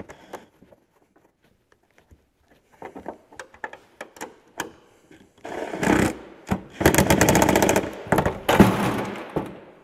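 Light clicks and knocks of work on the snowmobile's front end, then from about halfway a power tool running in several bursts with a fast, even rattle, worked at the hood's front hinge.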